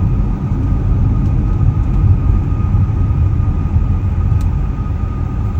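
A car driving: a steady low rumble of engine and road noise, with a faint steady whine above it.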